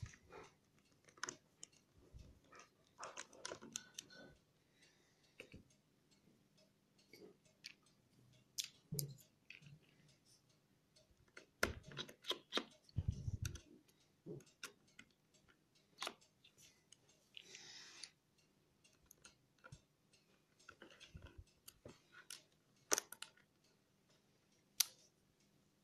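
Scattered light clicks and taps with brief rustles as hands handle the laptop's bottom cover.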